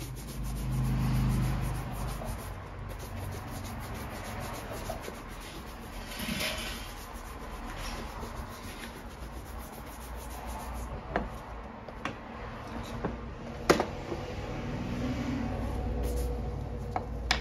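Stiff-bristled, wooden-backed shoe brush scrubbed briskly back and forth over a leather boot: a continuous rubbing that swells and fades with the strokes. A few sharp knocks come in the second half, the loudest about two-thirds of the way through.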